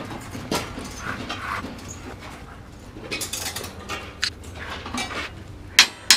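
Steel rebar and tie wire being handled as a column rebar cage is tied: short rustling, breath-like noises, then a few sharp metallic clicks, the loudest near the end.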